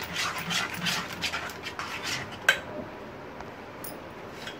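Metal spoon churning thick cream in a metal bowl, quick wet scraping strokes about four a second; the cream has begun to break into butter and buttermilk. About two and a half seconds in the strokes stop with one sharp clink of the spoon against the bowl.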